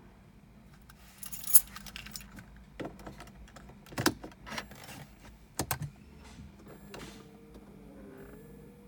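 Keys jangling with a string of sharp clicks, the loudest early on, then a faint steady electronic tone starting about 7 seconds in, as a 2007 BMW 335i's key is handled for a start attempt that does not crank.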